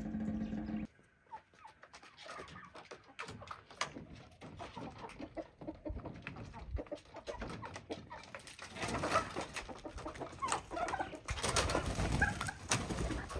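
Backyard chickens clucking, with many short scattered clicks; the clucking grows louder and busier about eight seconds in. A low steady hum stops about a second in.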